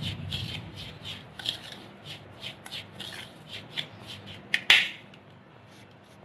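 Steel spoon stirring dry semolina and spices in a stainless steel bowl: a quick, uneven run of gritty scrapes, with one louder clink of spoon on bowl near the end, after which the scraping stops.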